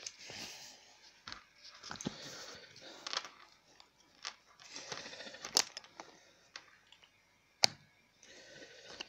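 Handling noise from a phone being picked up and propped back up: irregular rustling and scraping broken by sharp clicks and taps, the sharpest a little after halfway and again near the end.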